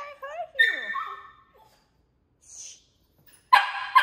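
Small fluffy dog giving a high, wavering whine, then one bark about half a second in. Two quick, loud barks follow near the end.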